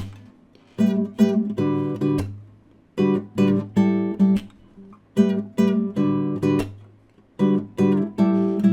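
Acoustic guitar strumming chords in a repeating figure: about four strums, then a brief gap, roughly every two seconds.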